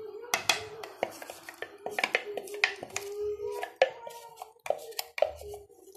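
Utensils clinking and knocking irregularly against a metal cooking pot as sauce is stirred and poured, over a steady hum.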